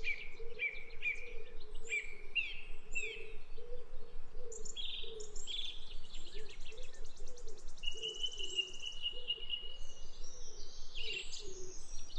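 Several birds singing and calling together: a run of short down-slurred whistles repeated about twice a second in the first few seconds, then chirps, rapid trills and one long, even high note lasting about two seconds, over a low, uneven pulsing sound.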